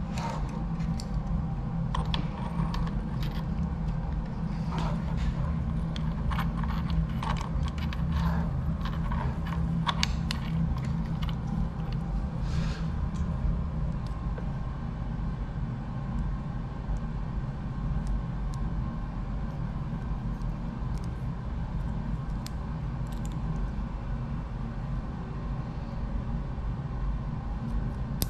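Small plastic and metal clicks and rattles of a snowmobile finger throttle housing and its wiring connectors being fitted and handled, over a steady low hum. The clicks come thick in the first half and thin out after that.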